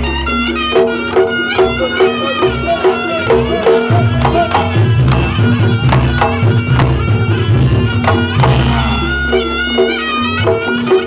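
Reog Ponorogo gamelan music: a kendang hand drum played fast and busily with many sharp strokes, over a wavering, reedy slompret shawm melody and a steady repeating two-note pattern. A large hanging gong struck with a padded mallet booms every few seconds.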